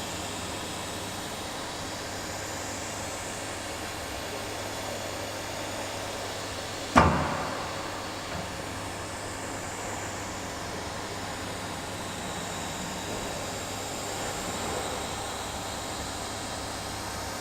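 CNC router running steadily while carving MDF. Partway through, one sharp, loud knock rings out and dies away within about a second.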